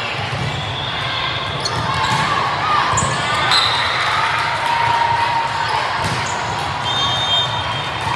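Echoing gym ambience during a team game: a steady murmur of spectator voices, with a few sharp ball or floor knocks and short high squeaks.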